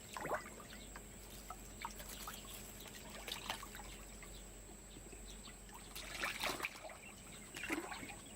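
Pond water trickling and lapping, with small splashes and a few louder splashes.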